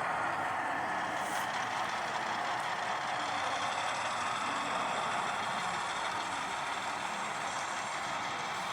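Steady, even background din of a busy exhibition hall, with no distinct events and no speech.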